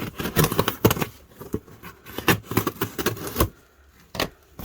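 A box being opened and its packaging handled: a rapid run of clicks, scrapes and rustles for the first three seconds or so, then a brief lull and one more knock near the end.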